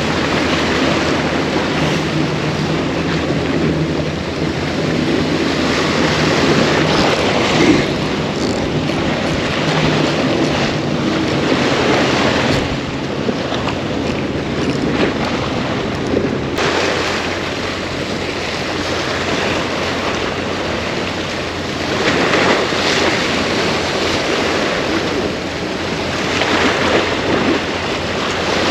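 Surf washing ashore, with wind buffeting the microphone; it swells and eases in slow waves.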